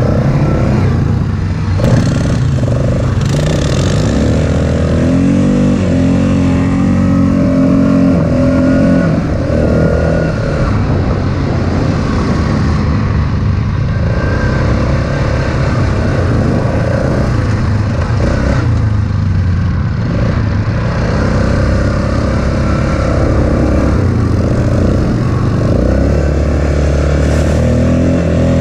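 ATV engine running close to the microphone as the quad is ridden over sand trails, its note rising and falling as the throttle is worked.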